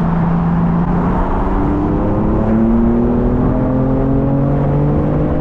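Stage-1-tuned BMW M car's engine pulling under acceleration, its note climbing slowly and steadily in pitch from about a second in, heard from the open-top cabin with wind and road noise.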